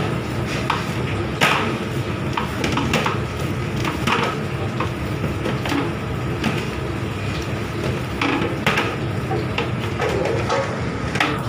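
A large mass of roti dough being kneaded by hand in a big aluminium bowl: irregular slaps and thuds as it is pressed, lifted, flipped and thrown back down, over a steady low hum.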